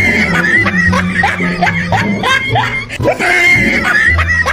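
Background music with a steady bass line and a fast, repeated run of short rising notes over a held high tone.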